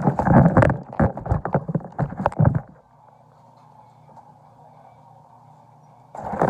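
Things being handled and set down: a quick run of knocks and clatters for about three seconds, then only a faint steady hum, with more clatter starting near the end.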